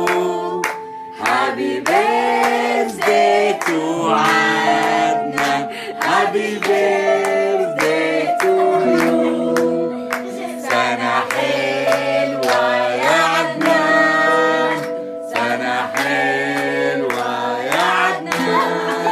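A song: a singing voice over instrumental accompaniment with held notes and frequent sharp percussive hits.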